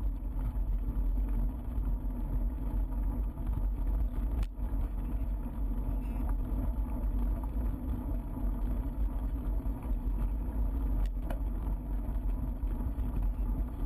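Bicycle rolling over a gravel path with wind buffeting the action camera's microphone: a steady low rumble and rattle, broken by two sharp clicks, about four and a half and eleven seconds in.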